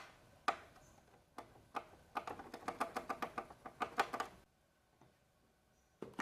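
A series of sharp, light clicks and taps from hard objects: a few single clicks, then a quick rattling run of several taps a second, stopping about two-thirds of the way through, with one more click near the end.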